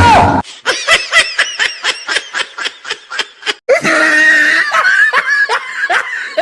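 A loud air-horn blast cuts off within the first half second, followed by rapid, high-pitched laughter in quick ha-ha pulses. A second, denser stretch of laughter starts a little before the four-second mark.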